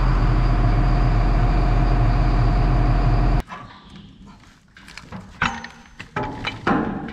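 Tractor diesel engine idling steadily close by, cutting off abruptly about three and a half seconds in; then a few scattered metallic knocks and clanks.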